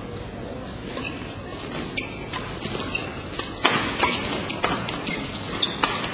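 Badminton being played on an indoor court: from about two seconds in, irregular sharp clicks and thuds of rackets striking the shuttlecock and players' shoes landing on the court, over a steady hall background.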